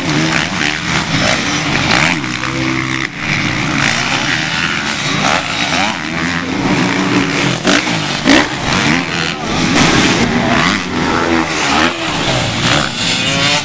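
Several four-stroke motocross bikes racing together, their engines revving up and down over and over as the riders take the jumps.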